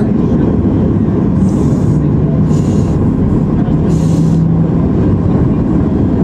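Boeing 737-800's CFM56-7B engines idling, a loud steady low rumble heard inside the cabin next to the engine, with a few brief hisses.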